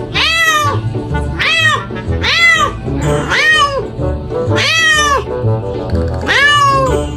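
A cat meowing repeatedly, about six long calls that each rise and then fall in pitch, over background music.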